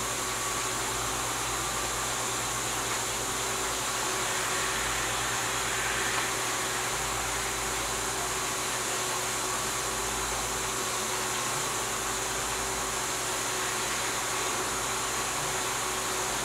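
Steady machine hum with an even hiss.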